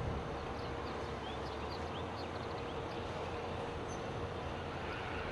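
Steady low engine hum of utility bucket trucks idling at a power line repair, with a few faint high bird chirps in the first couple of seconds.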